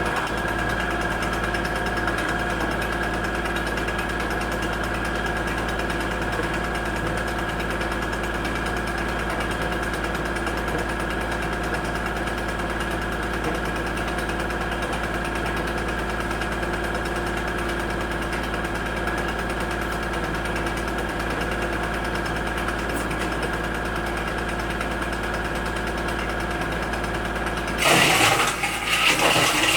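Kubota L2501 tractor engine running steadily while driving a BX42S PTO wood chipper, with a steady high tone over the engine sound. Near the end the sound turns abruptly louder and rougher.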